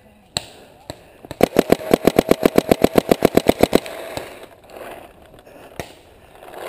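Paintball marker firing a rapid burst of about two dozen shots, roughly ten a second, for about two and a half seconds starting a little over a second in.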